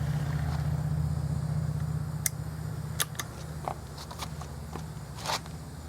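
Steady low engine hum that eases off about two seconds in, with a few faint light clicks and ticks scattered through it.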